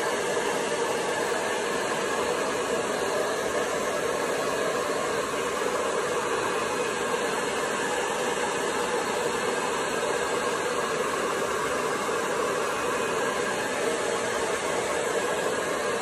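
Hand-held hair dryer running steadily, blowing warm air over a thawed frozen rat to heat it before a snake feeding.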